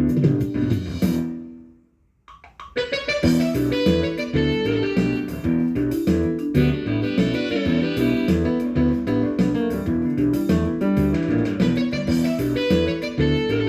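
Instrumental background music that fades out about two seconds in; after a short gap, music with a steady beat starts again.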